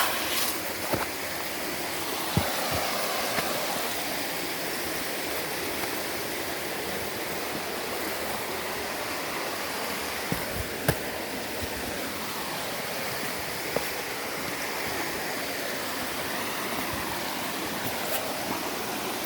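Running water rushing steadily, like a stream or small waterfall, with a few sharp knocks now and then.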